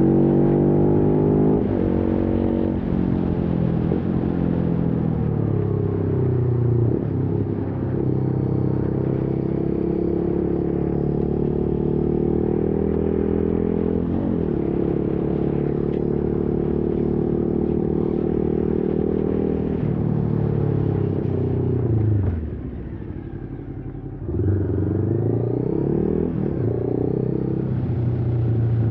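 Motorcycle engine under way, revving up through the gears, then holding a steady cruising pitch. About three-quarters through it drops back to a brief quieter low-revs stretch, picks up sharply again, and eases off at the very end.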